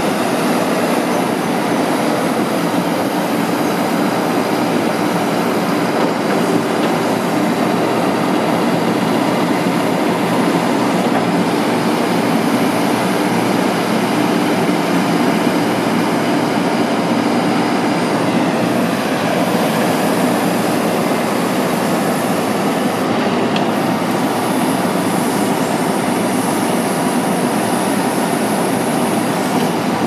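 A 2015 John Deere 310SL backhoe loader's diesel engine running steadily and loudly while the rear backhoe boom and bucket are worked on the hydraulics.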